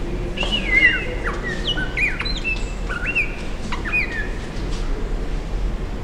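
A glossy black crow calling a run of about ten short whistled notes that swoop up and down, over about four seconds, then stops.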